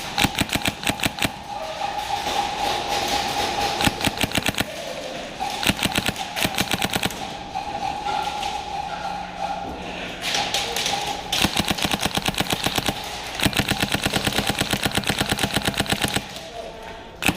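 Airsoft guns firing full-auto in repeated rapid bursts, each a quick run of sharp cracks lasting from about half a second to nearly three seconds, with short gaps between.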